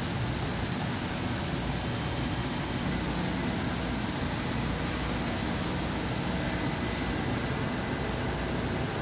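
An EKO 198 gas-fired continuous nut roasting machine running: a steady, even machine noise with a low hum underneath and no change in level.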